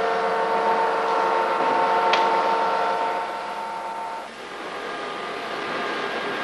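Steady machine hum made of several fixed tones, with a faint click about two seconds in. About four seconds in it dips and changes to a different, slightly quieter hum.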